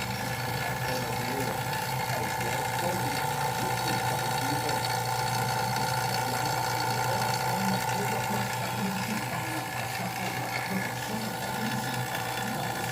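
Steady mechanical hum with several held tones, consistent with a 2006 Toyota Vios running with its newly fitted AC compressor working.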